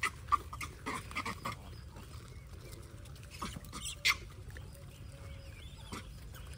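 Short, sharp animal calls: several in quick succession in the first second and a half, then a louder one about four seconds in.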